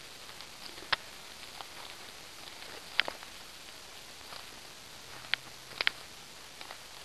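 Footsteps through dead leaf litter and fallen sticks: a handful of sharp crackles and snaps, spaced irregularly, over a steady hiss.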